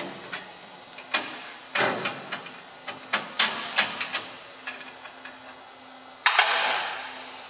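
Metal clinks and knocks of steel parts being handled as the clamping hex nut and top plate are undone and lifted off a union-nut grinding fixture. About six seconds in, a louder noisy rasp starts and lasts over a second.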